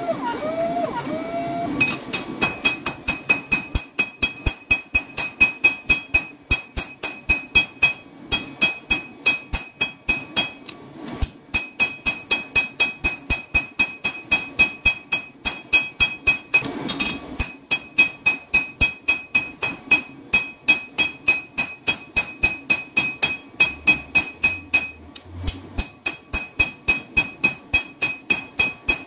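Hand hammer forging a red-hot cu mai billet of copper and steel on an anvil. Fast, even blows start about two seconds in, about three to four a second, each with a high anvil ring. There are two short pauses, about eleven and seventeen seconds in.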